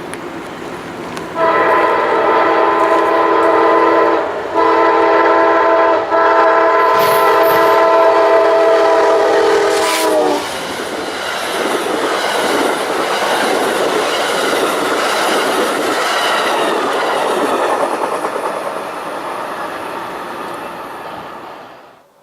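Locomotive horn sounding a long chord from about a second in, broken twice by very short gaps and sagging in pitch as it cuts off about ten seconds in. The train then passes with a steady rumble and clatter of wheels on rail, fading away near the end.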